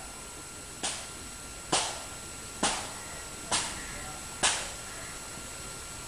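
Five sharp knocks in an even rhythm, a little under a second apart, each with a short ringing tail.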